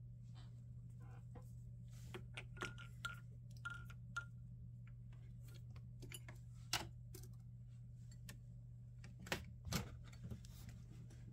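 Scattered light clicks and taps of hands working the metal parts of a vintage Singer sewing machine while the bobbin is taken out for refilling, with a few short squeaks and a faint steady low hum underneath.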